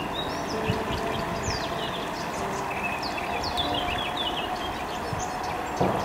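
Several songbirds chirping and whistling in quick short phrases over a steady rush of water spilling through a small concrete weir. A single soft knock sounds near the end.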